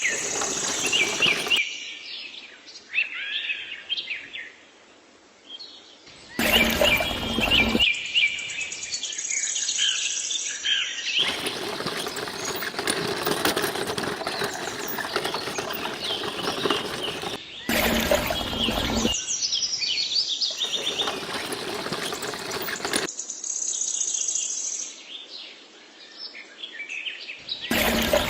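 Birds chirping and calling, heard in several spliced segments, with a steady noise underneath during some stretches.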